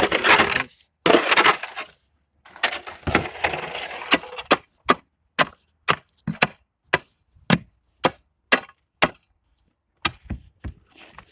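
A hand tool chopping and breaking up hard ice: crunching and scraping at first, then sharp chopping strikes at about two a second, with a couple more blows near the end.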